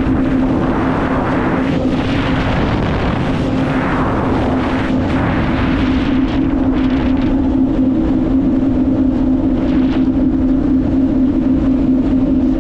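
Yamaha WaveRunner personal watercraft running at a steady cruising speed, its engine a constant drone. Wind and water spray rush over the microphone, heavier in the first half.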